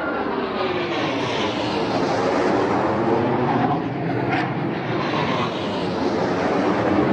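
Two RAF Hawk jet trainers flying past low: loud, continuous jet engine noise, with a sweeping change in tone as they pass.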